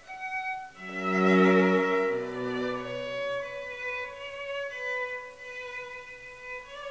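Background music: a slow melody of long held string notes, swelling with lower notes about a second in.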